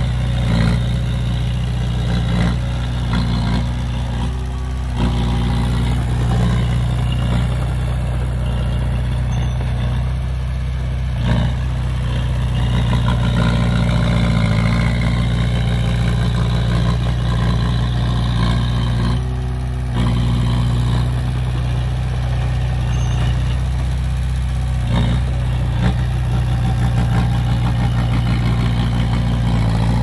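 Heavy construction machinery's diesel engine running steadily and loudly, with a few short clanks.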